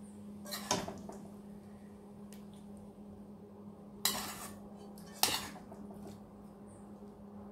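Metal spoon scooping curry chicken out of a metal cooking pot, clinking sharply against the pot three times, under a second in, about four seconds in and again a second later.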